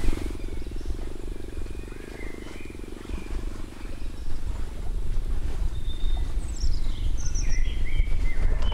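Outdoor ambience of wind buffeting the microphone as a low rumble, with a low buzz that fades out over the first few seconds. Short bird chirps come through, most of them near the end.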